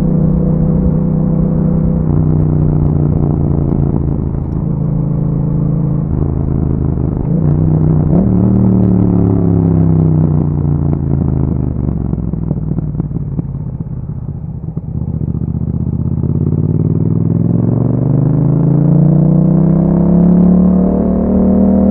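2021 Yamaha MT-07's 689 cc parallel-twin engine through an Akrapovic exhaust, under way. It holds steady revs, blips up briefly about eight seconds in, then winds down for several seconds as the bike slows. Over the last six seconds it pulls up again in a long rising run.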